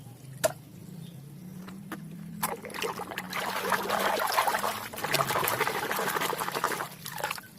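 Water splashing and trickling as a muddy plastic toy is rinsed and scrubbed by hand, building up about two and a half seconds in and easing off near the end. A single click comes just before, over a steady low hum.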